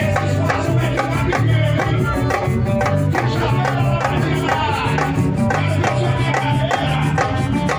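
Live band music with dense, regular percussion: drums and shakers keeping a steady beat under sustained pitched instrument lines.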